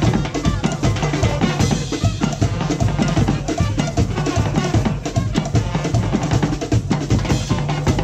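Carnival street band's drum section playing a steady, driving rhythm on many large slung drums, with deep bass-drum strokes under busy higher hits.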